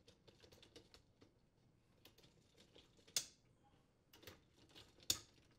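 Faint clicks and light rattles of a KitchenAid dishwasher's wire upper dish rack being fitted onto its rail rollers and slid in, with two sharper clicks about three seconds in and near the end.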